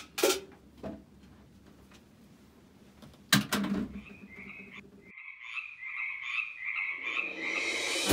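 Frogs croaking in an even rhythm, about two croaks a second, starting about four seconds in and growing louder. Before that come two short sharp sounds near the start and a louder one about three seconds in.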